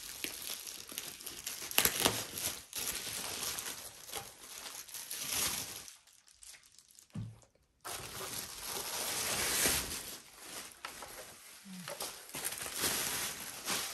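A soundbar's white protective wrap crinkling and rustling as it is slit with a knife and pulled away by hand, with a short pause about six seconds in.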